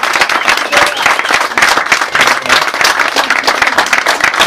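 Audience applauding: a crowd of guests clapping, dense and steady, at the close of a speech.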